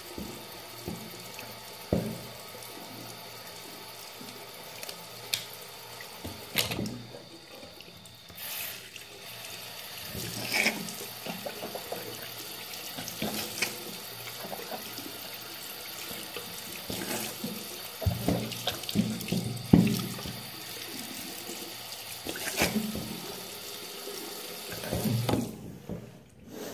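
Bathroom sink tap running steadily while someone rinses after brushing their teeth, with scattered splashes and small knocks. The running water stops abruptly near the end as the tap is turned off.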